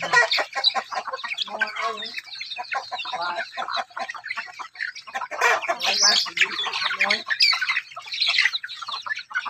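A flock of chickens clucking and squawking while feeding, over many quick pecks ticking on the ground. The squawking grows louder about halfway through.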